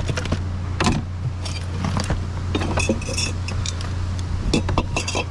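Discarded junk being rummaged through by hand: repeated clinks and clatters of glass and metal objects knocking together, over a steady low hum.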